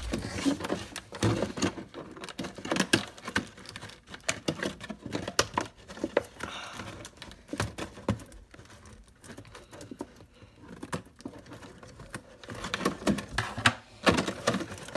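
Hands handling crinkly plastic toy packaging at close range: a run of small clicks, taps and rustles, sparser in the middle and busier again near the end.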